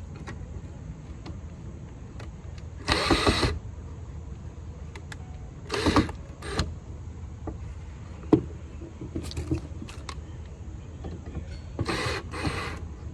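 Cordless drill/driver whirring in short bursts, about four of them a few seconds apart, as it drives screws fixing a shelf to wooden legs, with small clicks and knocks of handling between.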